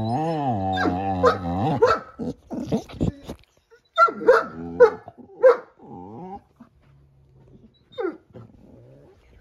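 A dog growls low and long, warning another dog off the bed. It then barks sharply three times about four to five and a half seconds in, and once more near the end.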